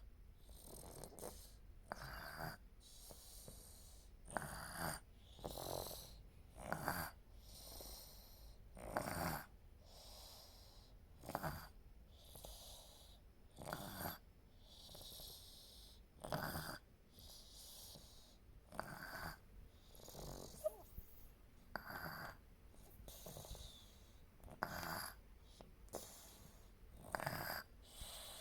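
A sleeping baby snoring quietly and evenly, one short snoring breath about every two and a half seconds.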